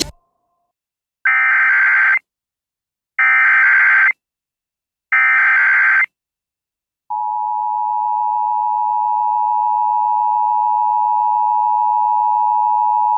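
Emergency Alert System SAME header: three short bursts of screeching data tones, each about a second long with a second's gap between them. About seven seconds in, the steady two-tone EAS attention signal begins and holds; this sequence announces an incoming alert, here a tsunami warning.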